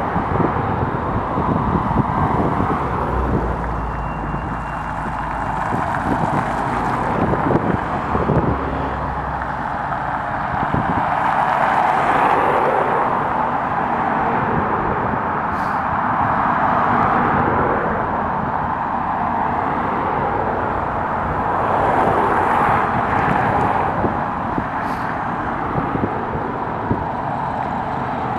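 A line of cars and a pickup truck driving past one after another. The engine and tyre noise swells as each vehicle goes by, with a low engine rumble in the first third.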